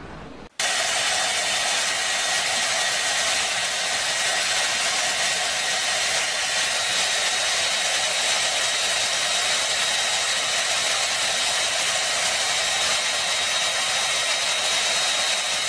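Handheld hair dryer running steadily, a loud even blowing hiss with a thin whine over it, cutting in suddenly about half a second in.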